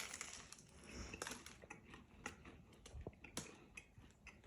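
Faint crunching and chewing of a chalupa with a crispy fried-cheese shell, heard as scattered small crackles and clicks.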